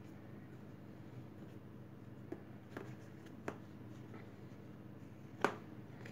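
A few sharp light clicks and taps from crocheting velvet yarn around a clear plastic lid with a metal crochet hook, the loudest about five and a half seconds in, over a faint steady low hum.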